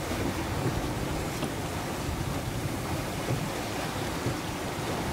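Steady rush of wind and sea aboard a sailing yacht under way, with wind buffeting the microphone in a low, uneven rumble.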